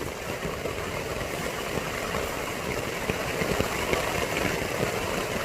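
Heavy rain pattering steadily on a tent, a dense, even patter of many small drops.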